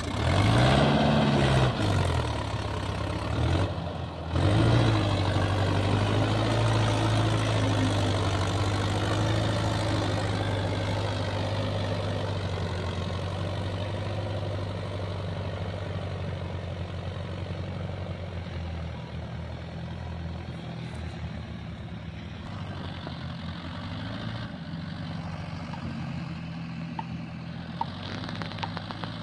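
Mahindra Yuvo 4WD tractor's diesel engine revving hard under load as it hauls a loaded trailer out through mud. The revs rise and fall in the first couple of seconds, dip briefly about four seconds in, then hold high and slowly ease off.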